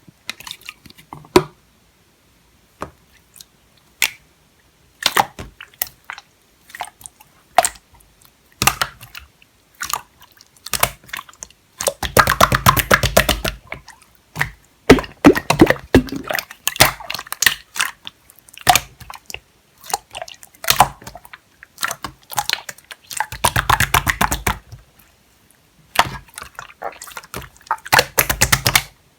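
Chewy clear slime being squeezed, stretched and folded by hand, making sticky clicks, pops and squelches. These come sparsely at first, then in a few denser runs of rapid crackling.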